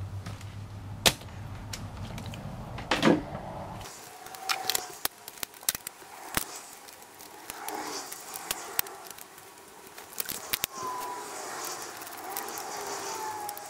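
Plastic clicks and knocks from a laptop's case parts being pried off and handled. About four seconds in the sound switches to fast-forward playback, so the clatter comes in quick bursts with short squeaky chirps.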